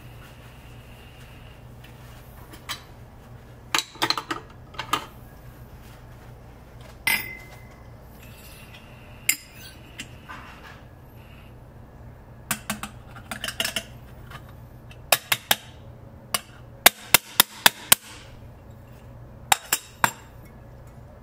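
Sharp clinks and knocks of metal and glass, irregular with a quick run of five near the end, as an espresso shot is set up on a La Pavoni lever machine: the portafilter is locked into the group head and a small glass is handled under it. A faint steady low hum lies beneath.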